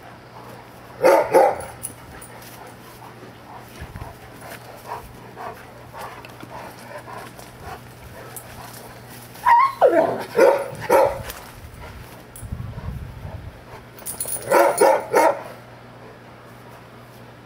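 Newfoundland dogs barking in play while they wrestle: a short burst of barks about a second in, a quick run of several barks around the middle, and another cluster near the end.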